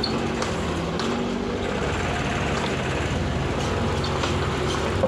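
Terex TC16 mini excavator's diesel engine running steadily, with a few faint clicks over it.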